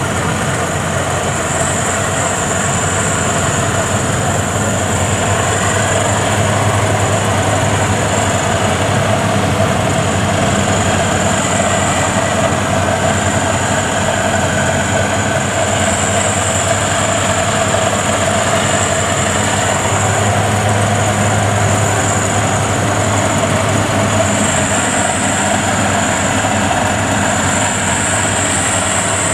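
FMWorld WD102 Pro rice combine harvester running under load while cutting standing rice: a steady engine and threshing drone with a thin high whine on top.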